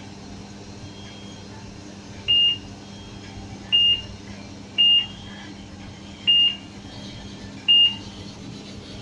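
Garland grill control panel beeping at each button press, five short high beeps about a second or so apart, as the grill is switched into its clean mode. A steady low hum runs underneath.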